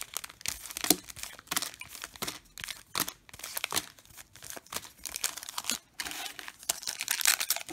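Wrappers of Panini Contenders Draft Picks football card packs crinkling and rustling in the hands as a stack of packs is handled and sorted, with many short irregular crackles.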